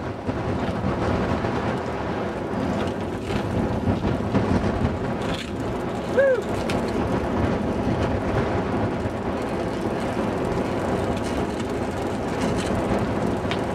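Steady wind rumble on a helmet-mounted camera microphone while riding, mixed with wheel and road noise. A single short squeak about six seconds in.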